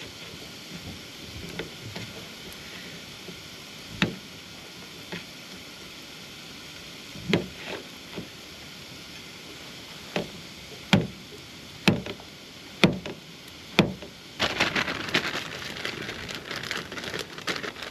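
Steady hiss of rain, broken by several sharp knocks and clacks of cooking gear. In the last few seconds there is a dense, fast crackle.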